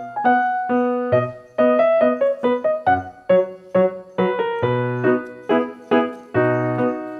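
Background music: a simple children's tune played on a piano-sounding keyboard, a melody of struck notes over low bass notes, about two notes a second.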